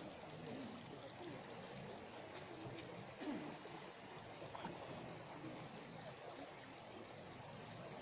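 Steady soft rushing of river water flowing over a shallow riffle.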